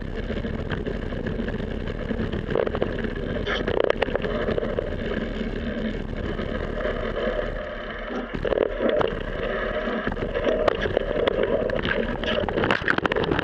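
Mountain bike descending fast over a leaf-covered dirt trail, heard through a camera mounted on the bike: a steady rush of tyre and wind noise with frequent rattles and knocks from the bike over bumps, busier in the second half.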